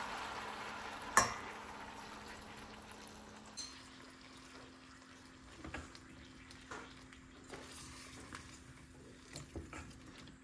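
Water pouring from a glass into a stainless steel pot of sliced zucchini, tailing off early, with one sharp clink about a second in. Then a spatula stirring the zucchini in the steel pot, with scattered soft knocks and scrapes against the pot.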